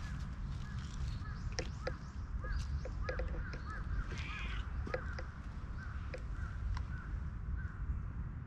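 Birds calling, a string of short chirp-like calls repeated every fraction of a second, over a steady low rumble, with scattered sharp clicks.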